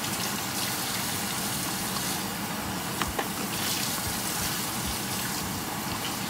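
Thin tamarind and soy-sauce gravy simmering in an open pressure cooker on high heat, a steady bubbling hiss, with a couple of faint clicks about three seconds in.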